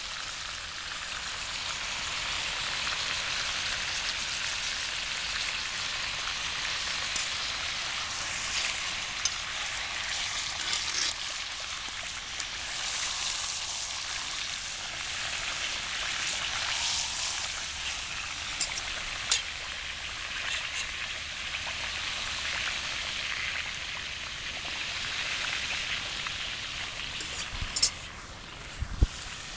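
Pork roast searing in a cast-iron Dutch oven over a campfire: a steady, rain-like sizzle of meat in hot fat, with scattered sharp pops and a few more pops and low thumps near the end.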